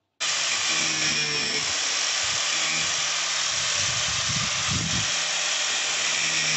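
Corded angle grinder running at full speed, its disc grinding the heads off brad nails left in a plywood subfloor. It cuts in suddenly and holds a steady, loud whine and hiss.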